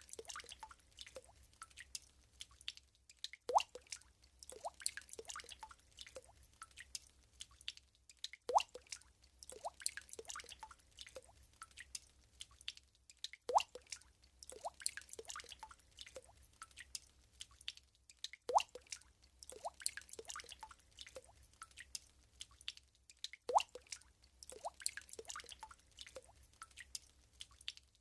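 Water drops falling into still water, each a short plink that rises in pitch. A louder drop opens each group of smaller drops, and the same pattern repeats about every five seconds.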